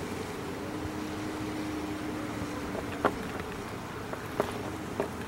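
Steady low hum of a distant motor, with three sharp knocks in the second half, the first, about three seconds in, the loudest.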